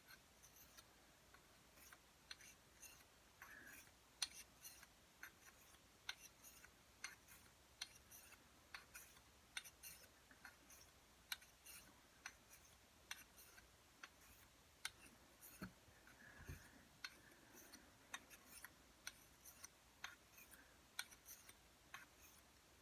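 Faint, quick ticks and light scrapes of a dagger blade being stroked across an oiled honing stone, repeated about twice a second.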